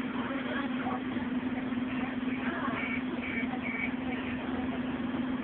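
Scania OmniCity bus's 9-litre five-cylinder EGR diesel engine running with a steady drone, heard inside the passenger cabin. Three short high beeps sound around the middle.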